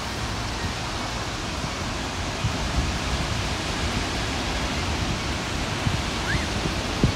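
Steady rush of sea surf breaking on a sandy beach, mixed with wind noise on the microphone.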